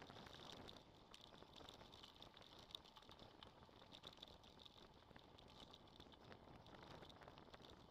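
Faint rolling noise of a mountain bike on a dirt road, with many small light rattles.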